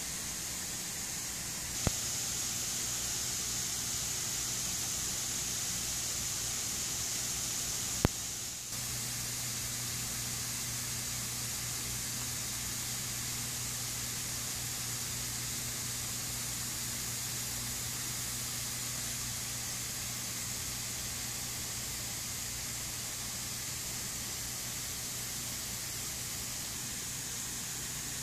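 Automated misting nozzles spraying fine water, an even, high hiss during a misting cycle. There are two sharp clicks, about two and eight seconds in, and a low steady hum starts just after the second.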